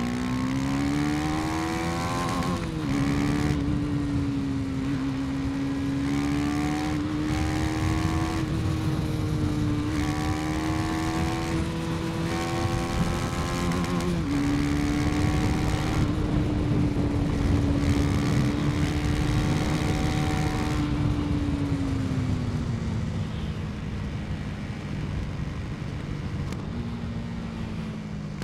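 KTM 250 Duke single-cylinder engine under way. The revs rise at the start, drop sharply with an upshift about three seconds in and again about fourteen seconds in, and hold fairly steady between. They then fall away past the twenty-second mark as the throttle closes, over a steady rush of wind.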